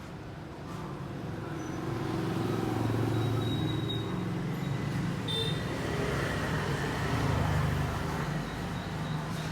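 Low rumble of a passing motor vehicle, swelling from about a second in and peaking twice, around three seconds in and again near seven and a half seconds.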